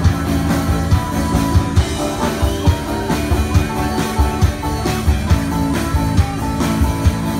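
Live rock band playing: electric guitars over a drum kit keeping a steady, driving beat.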